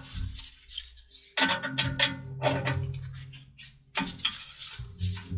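A small crescent wrench turning a thread tap in a steel exhaust pipe's sensor port, re-cutting the M12 × 1.25 threads: a run of sharp metal clicks and clinks as the tap is worked a little at a time and backed off to clear the chips. A low steady hum sits underneath.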